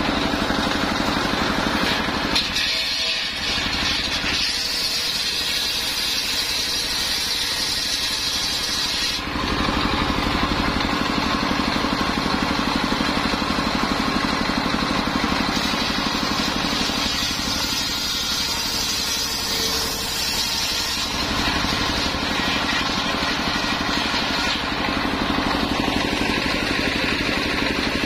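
Car engine running steadily, driving a homemade circular saw rig. Twice the sound shifts for several seconds, the low hum easing while a higher hiss grows, and a thin whine joins near the end.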